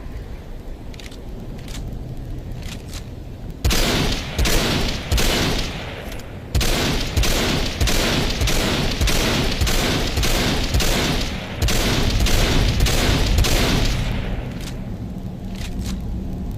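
Simonov AVS-36 rifle firing a long run of shots, about two a second, from about four seconds in, with a short break midway and fading near the end, over a steady low rumble. A few faint shots come in the first seconds.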